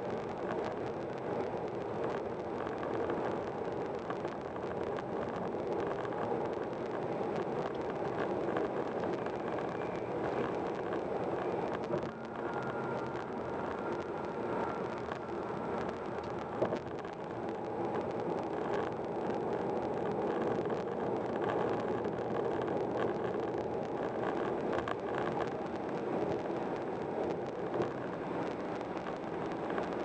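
Steady tyre and wind noise heard inside a car cruising at highway speed, with a single light click a little past halfway.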